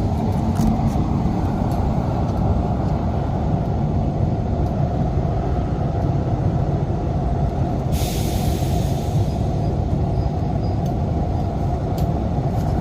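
Downdraft wood-burning stove's fire running with a steady low rumble as it draws air in, with a short hiss about eight seconds in.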